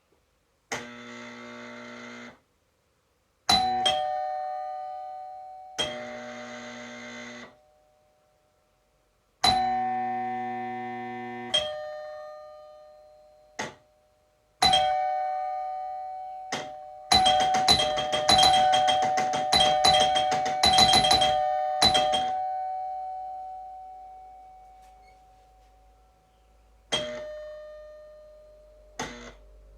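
Old electromechanical doorbell chime: a plunger striking metal tone bars, each strike ringing at two pitches and fading slowly. Three times a steady electric buzz sounds for about two seconds. In the middle, a rapid run of strikes lasts about five seconds.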